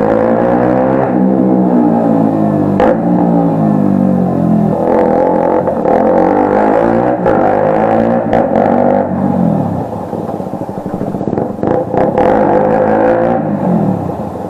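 KTM RC 125 single-cylinder four-stroke engine through an Akrapovic exhaust with the DB killer removed, revving up and down several times, too loud and way loud with the baffle out. A few sharp cracks stand out, about three seconds in and again near the end.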